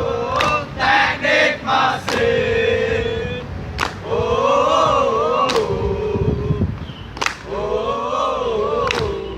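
A large group of voices singing and chanting together in unison, holding long notes that rise and fall, with a few short shouts about a second in. A sharp hit keeps the beat about every second and a half, six times.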